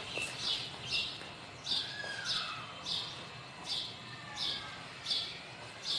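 Small caged bird chirping over and over, short high chirps at a fairly even pace of about one every two-thirds of a second, with a faint gliding whistle about two seconds in.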